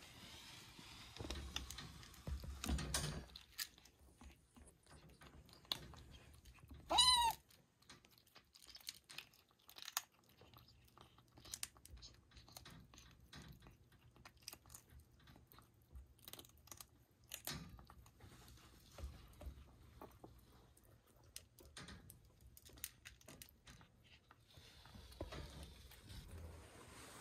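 Kittens eating from a food bowl, with scattered small chewing clicks and a rustle near the start. A cat meows once, loudly, about seven seconds in.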